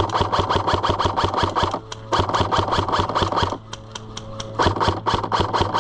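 Airsoft gun firing on full auto in three long bursts of rapid, even shots. The first burst ends about 2 s in, the second runs from just after that to about 3.5 s, and the third starts about 4.5 s in.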